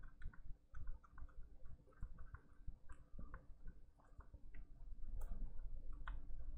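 Faint, irregular small clicks and scrapes of a tool smearing solder paste across a metal BGA reballing stencil.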